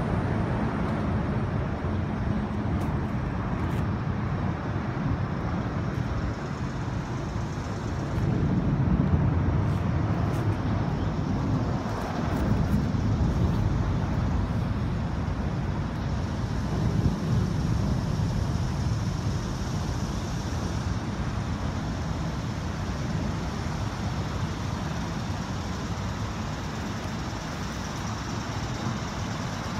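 Steady highway traffic noise from the elevated roadway overhead, a continuous low noise with no breaks.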